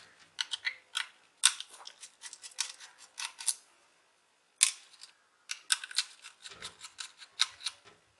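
Small screwdriver working the four screws out of the sides of a laptop hard disk: a run of quick, sharp metal clicks and ticks in clusters, with a brief pause about four seconds in.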